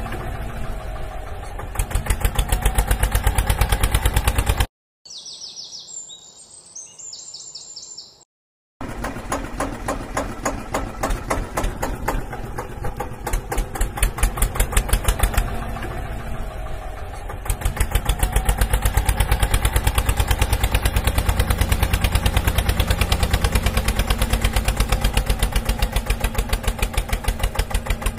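Tractor engine sound, a steady rapid putter with an even beat, for toy tractors hauling mangoes. About five seconds in it stops for roughly four seconds, leaving only faint bird chirps, then starts again and runs on.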